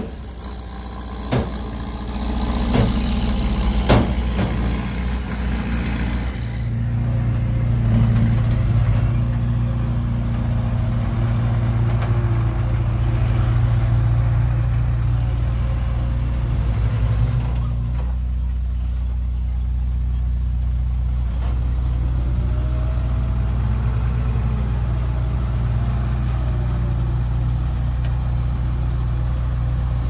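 Heavy construction machine's diesel engine running steadily, with three sharp knocks in the first four seconds and the engine getting louder about six seconds in.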